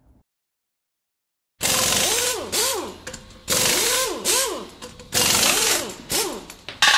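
Electronic end-title sound effect: silence, then about a second and a half in four loud bursts of hissing noise start suddenly, each with swooping tones that rise and fall.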